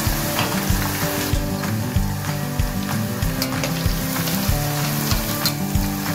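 Chicken pieces deep-frying in hot oil in a wok, a steady sizzle with small crackles, as a wire strainer lifts them out. Background music with a regular beat plays underneath.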